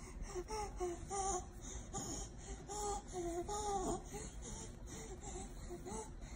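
Baby cooing and babbling: a string of short, high-pitched vocal sounds, a few a second, that grow fainter after about four seconds.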